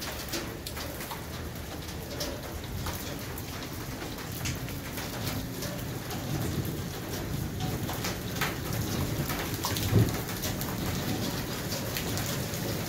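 Heavy rain pouring down: a steady downpour hiss with many close single drops pattering sharply. There is a low thump about ten seconds in.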